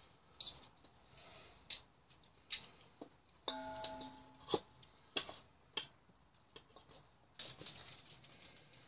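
A metal fork clinking and scraping against a stainless steel bowl while cooked chicken meat is pulled off the bones: sharp separate clicks every half second to second, and once, just past the middle, the bowl rings briefly with a clear metallic tone.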